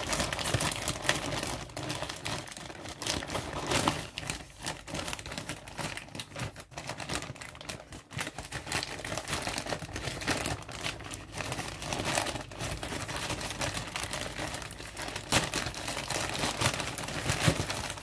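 White plastic mailing bag crinkling and rustling in the hands as it is worked open, with irregular crackles throughout.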